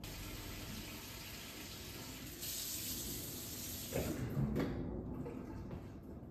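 Kitchen faucet running water into a stainless steel fermenter, topping up the wine must to the 6-gallon mark. The stream brightens about halfway through, there are a couple of knocks about four seconds in, and the flow then dies down.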